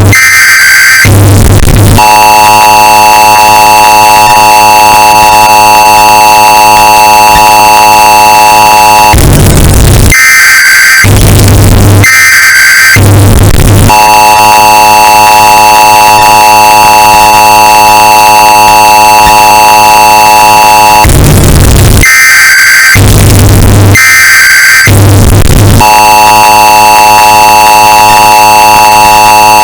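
Emergency Alert System sound effect, bass-boosted and clipped to full loudness. Short bursts of the harsh SAME data-header screech alternate with the long, steady two-tone attention signal; the cycle repeats about every 12 seconds.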